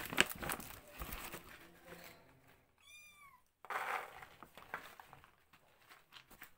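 A kitten mews once, a short, high call that rises and falls, about three seconds in. Around it are scattered rustles and small clicks of kittens moving on the bedding.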